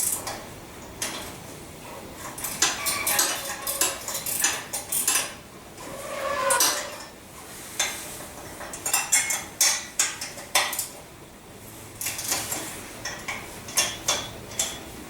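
Ratchet of a torque wrench clicking in quick runs, with metal tool clinks, as the cylinder head bolts of a motorized-bike engine are tightened down.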